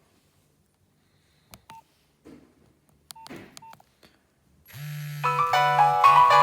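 Nokia 1600 mobile phone: a few keypad presses, each a click with a short beep, then a little past halfway a polyphonic ringtone starts playing, a steady bass note under a melody of several tones at once.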